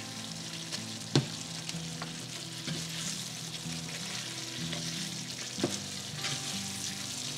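Thick chicken curry simmering and sizzling in a nonstick pan while a wooden spatula stirs it. The spatula knocks against the pan twice, about a second in and again past the middle.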